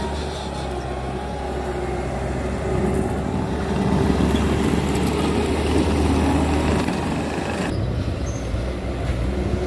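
Bobcat T650 compact track loader's diesel engine running steadily under load. It grows louder and rougher for a few seconds in the middle as the machine works.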